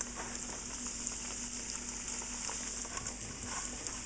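Panko-breaded shrimp deep-frying in hot oil in a pan: a steady sizzle with faint scattered crackles.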